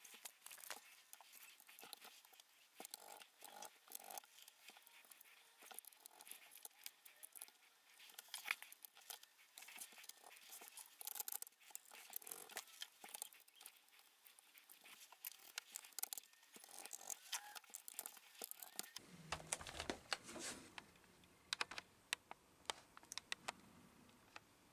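Faint, scattered small clicks and taps of a screwdriver and gloved hands working on the plastic bottom case of an HP 2000 laptop, screws being driven back in. A faint low hum joins about nineteen seconds in.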